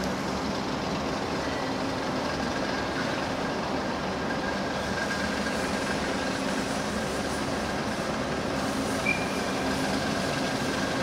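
Steady mechanical rumble with a low hum, like heavy machinery or an engine running, and a brief high squeak about nine seconds in.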